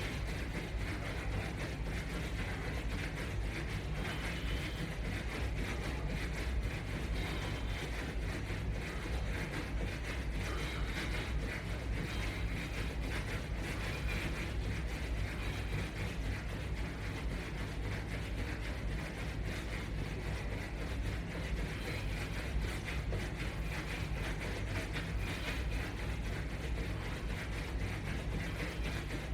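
Jogging in place against resistance bands: continuous quick footfalls and gear noise over a steady low hum.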